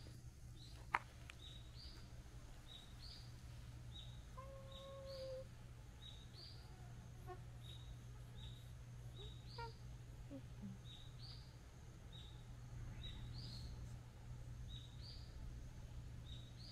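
A small bird calling over and over: a short, high two-note chirp repeated about once a second, over a low steady hum. One sharp click about a second in.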